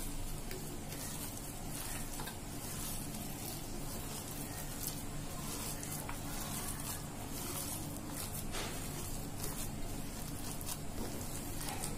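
A hand squeezing and mixing coarsely ground chana dal paste with chopped onion and chilli in a steel bowl: a soft, crackly squishing with many small clicks, over a low steady hum.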